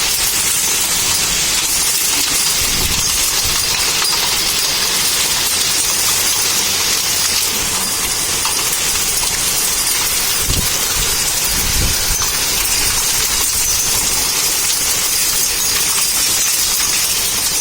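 Hail and rain pelting down: a dense, steady clatter and hiss of hailstones striking surfaces, with a few dull low thumps.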